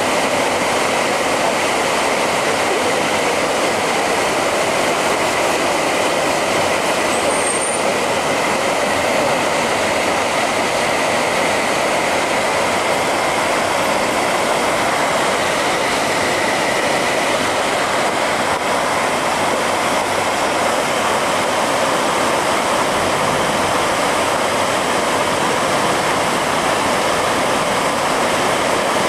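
Shallow water flowing steadily down a narrow concrete canal, an even rushing that does not change.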